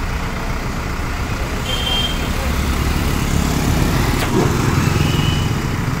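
Vehicle engine rumble of street traffic, growing louder from about two seconds in as a vehicle passes close by, with two short high-pitched beeps.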